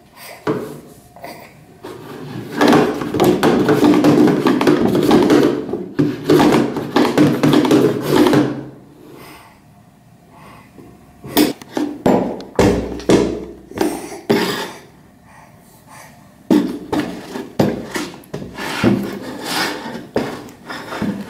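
Plastic paint bucket with a thin metal wire handle being pulled, pushed and knocked about on a tiled floor by a baby's hands. It scrapes along the tiles for several seconds, then gives a run of hollow knocks and clanks in the second half.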